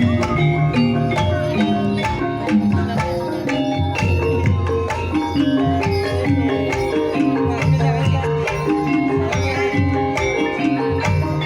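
Banyumasan gamelan music for an ebeg trance dance: hand drums beat a busy rhythm under struck tuned bars playing a repeating melody.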